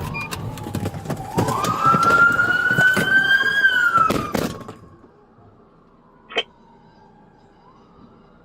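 Police car siren sounding a slow wail that rises, holds and falls, over vehicle rumble and several sharp knocks. About five seconds in the level drops abruptly, and the siren carries on only faintly.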